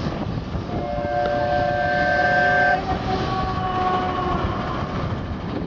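Miniature train's horn sounding two blasts, each a chord of steady tones. The first lasts about two seconds, and the second, shorter one follows straight after at a different pitch, over steady wind and outdoor noise.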